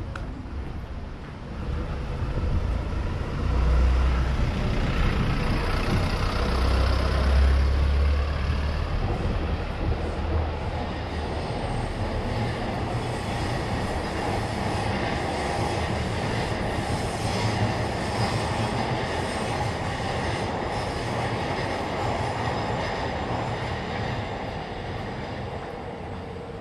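Train passing, a long, steady rumble of wheels on rails with some higher rail noise. The low rumble is heaviest in the first third, then evens out and eases a little near the end.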